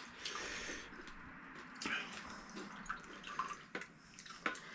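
Faint dripping and trickling of pani, the spiced water for panipuri, with a few light clicks.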